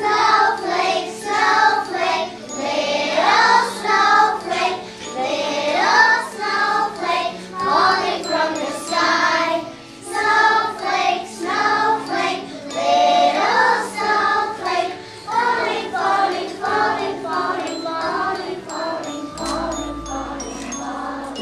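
A group of young children singing a song together, with bells jingling along.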